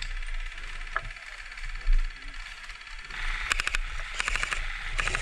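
Airsoft guns firing in three short rapid bursts of clicking shots in the second half.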